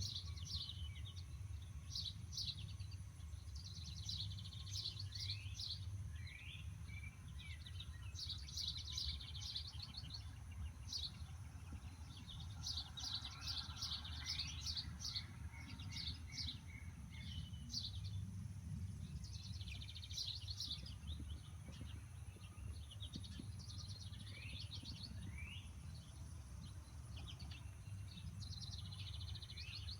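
Small songbirds chirping and twittering in quick bursts of short high notes and brief glides, over a steady low rumble.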